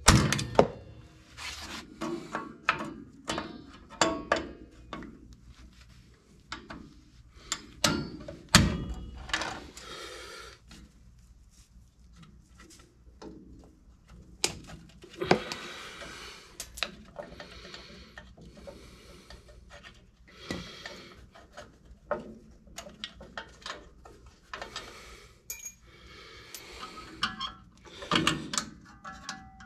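Metal tools clicking, scraping and knocking against drum brake hardware as the return springs are pried and unhooked with a drum brake spring tool. Scattered sharp metallic clicks and a few louder knocks come between stretches of scraping and rubbing.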